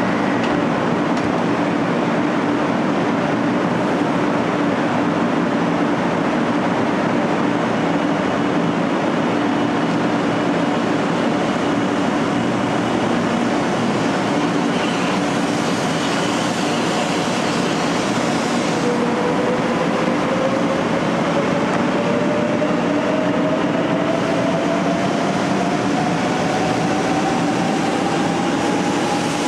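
JR West 500 Series Shinkansen standing at the platform with a steady running noise, then starting to pull away about two-thirds of the way through. As it accelerates, a motor whine rises steadily in pitch.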